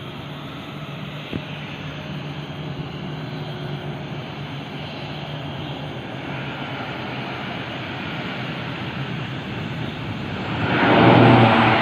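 Engine and propeller of a Pilatus single-engine turboprop aircraft running steadily, growing gradually louder, then much louder suddenly near the end as the aircraft comes close.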